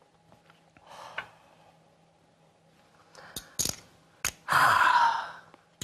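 A person sighing heavily near the end, after a softer breath about a second in. A few sharp clicks of poker chips come just before the sigh.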